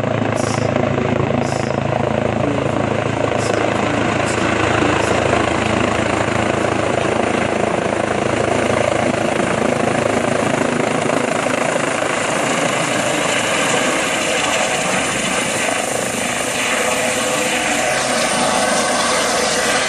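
Eurocopter EC135 helicopter running close by as it lands: steady loud rotor and turbine noise. The low rotor hum fades about nine seconds in while the rushing noise continues.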